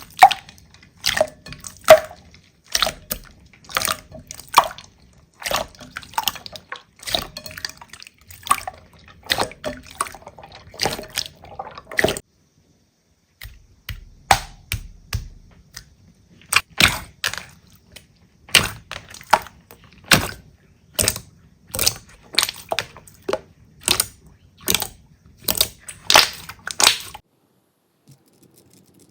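Slime being squeezed and pressed by hand, making sharp wet clicks and pops, about one or two a second. They break off for about a second near the middle and stop a couple of seconds before the end.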